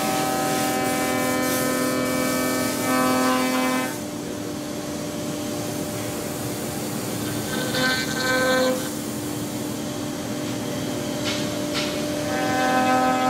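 Five-axis CNC router's HSD HS 652 spindle whining steadily as its tool cuts a wooden impeller, a whine of several tones over cutting noise. It drops back about four seconds in, swells briefly around the middle, and grows loud again near the end.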